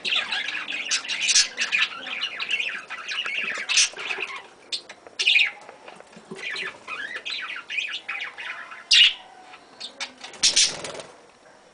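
A flock of budgerigars chattering and chirping. It is a dense warble for the first four seconds or so, then sparser chirps with a few loud, sharp calls, and it drops away just before the end.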